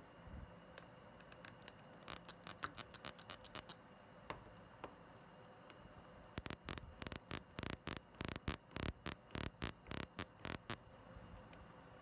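Restored stove spark lighter clicking as its trigger is pressed over and over, each click a spark, showing it now sparks properly. A quick run of sharp clicks comes about two seconds in, then a longer run of clicks from about six seconds until near the end.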